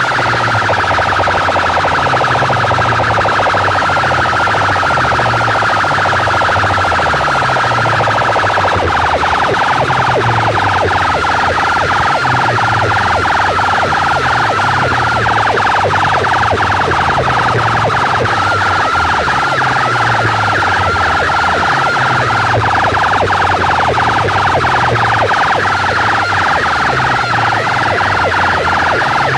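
Stacked DJ sound-box loudspeakers blasting a wavering siren-like tone over a repeating heavy bass line. A fast ticking beat joins about nine seconds in.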